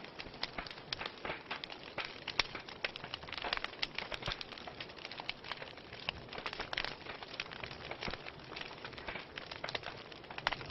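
Wood fire in a fireplace crackling: irregular sharp pops and snaps, several a second, over a soft steady hiss.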